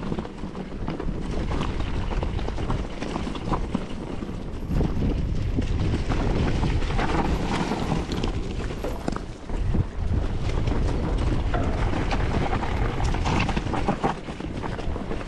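Wind buffeting the microphone of a camera on an electric mountain bike riding a trail, with scattered knocks and rattles from the bike going over rough ground.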